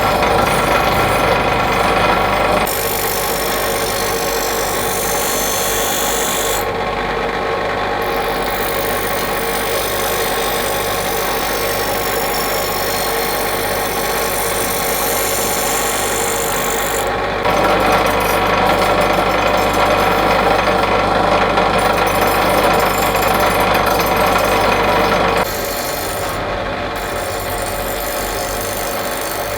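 A power tool grinding steel: a steady, loud, abrasive rasp over a motor hum. The sound changes abruptly several times.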